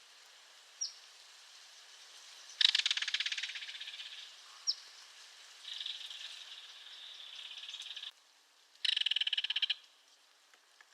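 Belted kingfisher giving its dry, rapid rattle call three times: a loud rattle about two and a half seconds in that fades away, a longer, softer rattle from about six seconds, and a short loud burst near nine seconds. Two brief high notes come in between.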